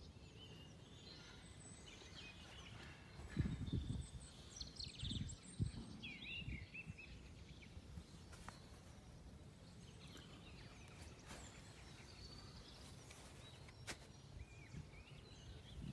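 Faint outdoor ambience of small birds chirping and singing in the background, with a few low rumbles on the microphone about three to six seconds in.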